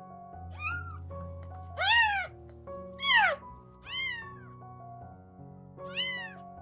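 A week-old tabby kitten mewing: five short calls, each rising then falling in pitch, the loudest two about two and three seconds in. Soft background music plays throughout.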